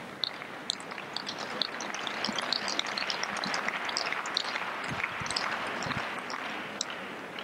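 Crowd applause of many scattered hand claps, building and then dying away near the end, with a few dull thuds of a tennis ball bounced on the clay court before a serve.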